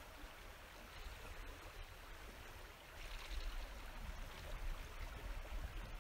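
River current flowing past, an even rush of water with a low rumble underneath; it gets louder about halfway through.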